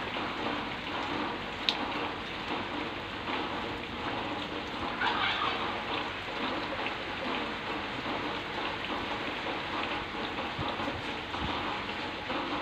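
Steady rain falling, an even hiss of drops, with one sharp click about two seconds in.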